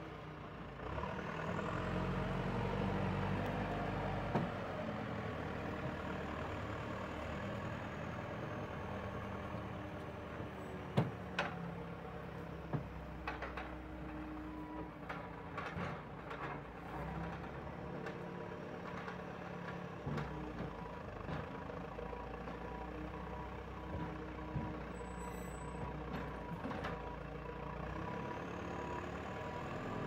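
JCB 3CX backhoe loader's diesel engine running steadily as the machine works. A few sharp knocks come through, the loudest about eleven seconds in.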